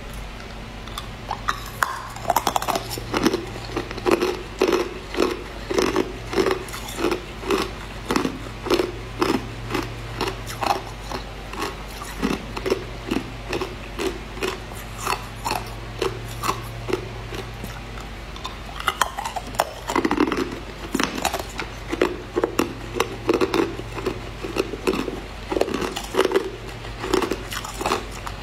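Ice cubes being bitten and chewed, a rapid run of sharp crunches that starts about a second and a half in, over a steady low hum.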